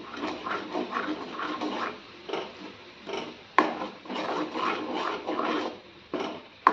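Metal ladle stirring thick masala paste around a metal kadai, in repeated short scraping strokes. The ladle clinks sharply against the pan about three and a half seconds in and again near the end.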